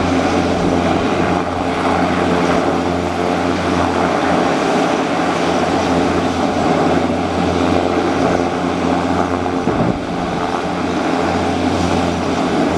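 Pilatus PC-12's single turboprop engine running steadily on the ground, a constant propeller drone with no change in power.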